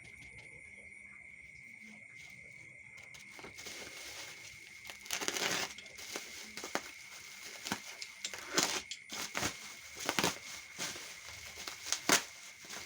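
Laptop packaging being handled: plastic and cardboard rustling and crinkling, with several louder sudden handling noises in the second half, over a steady high-pitched whine.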